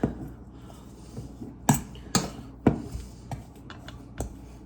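A fork mixing a soft cream cheese filling in a bowl, with scraping and about four sharp clinks of the fork against the bowl.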